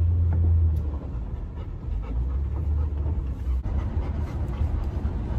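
A large dog panting inside a moving car's cabin, over the steady low rumble of the car on the road, a little louder in the first second.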